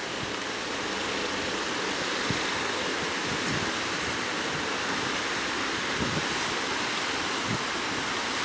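Big ocean surf breaking on the beach, a steady rushing wash of waves with no let-up.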